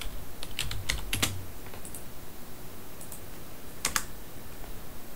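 Computer keyboard typing: a quick run of keystrokes about a second in, then a single keystroke near four seconds.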